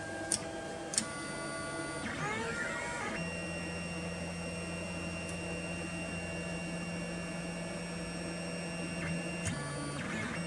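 Anycubic Kossel Plus delta 3D printer's stepper motors whining as the carriages drive the effector during automatic bed leveling. The pitch slides about two seconds in, then holds steady for several seconds and shifts again near the end.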